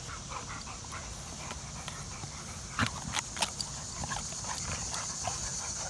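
Bully dogs tugging and shaking a rubber tug toy between them, scuffling on grass, without growls. From about three seconds in comes a run of sharp clicks and rattles.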